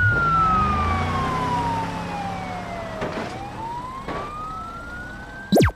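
Siren wailing slowly: its pitch falls for about three seconds, then climbs back up, over a low rumble that fades out. Near the end a short, loud swoosh sweeps down in pitch.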